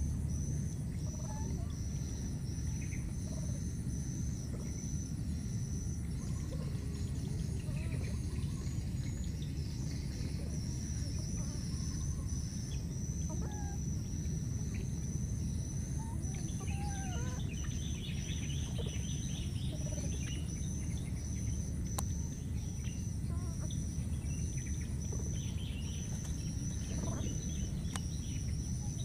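Insects trilling in a high chorus that pulses at an even rhythm, with a steady thin whine above it, over a low steady rumble; short faint chirps and squeaky calls come and go through it.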